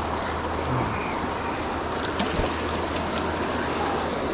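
Fast creek water rushing steadily, with a few faint ticks about two seconds in.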